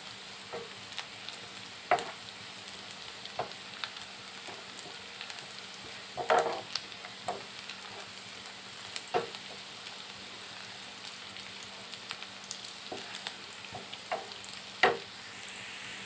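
Chopped onion, garlic and dried red chilli sizzling in hot oil in a frying pan, a steady hiss. A wooden spoon stirs them, knocking and scraping against the pan a few times.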